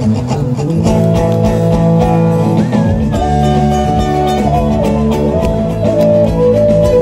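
Live acoustic band music: several acoustic guitars plucking and strumming, with a bamboo flute carrying a held, stepwise melody from about three seconds in.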